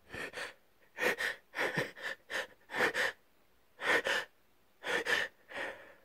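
A person with a cold in a sneezing fit, letting out a rapid series of about eight short, breathy gasps, several with a double catch, each under half a second.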